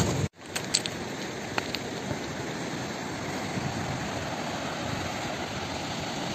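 Steady rushing of a fast-flowing river, with a few faint clicks in the first couple of seconds.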